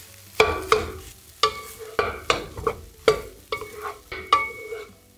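Wooden spatula knocking and scraping against a large frying pan while stir-frying rice, irregularly about two strokes a second, each knock with a brief ring from the pan. Faint sizzle of the rice frying underneath.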